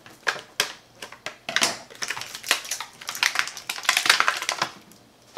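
Clear plastic packaging crinkling and crackling as it is handled, a dense run of sharp crackles that thins out near the end.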